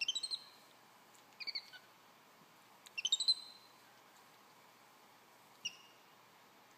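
Capuchin monkey chirping in short, high, twittering bursts, four of them a second or two apart.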